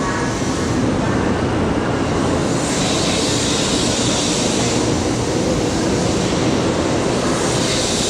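Steady roar of a 0 Series Shinkansen train at the platform, with a high hiss that swells about three seconds in and again near the end.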